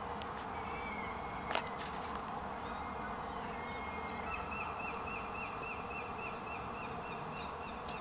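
Da Bird feather wand toy whirring with a buzz like insect wings as its feathers are swung through the air for a cat. There is a sharp click about a second and a half in, and a rapid, even run of high chirps, about five a second, through the second half.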